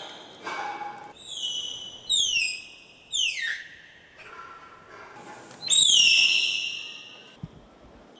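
Malayan tapir giving high-pitched whistling squeals of alarm: about four calls, each dropping quickly in pitch and then holding, with the longest and loudest about six seconds in. They are loud enough to hurt the ears in the stall.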